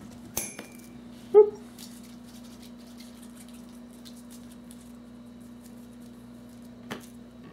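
A cat gives one short mew about a second and a half in, over a steady low hum. A sharp click comes just before it and another near the end.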